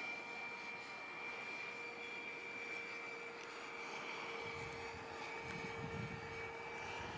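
Electric ducted fan of a HET L39 composite RC jet, a HET 9305 fan unit on a Typhoon 700-68 motor, whining steadily in flight, faint and even in pitch. A low rumble comes in about halfway through.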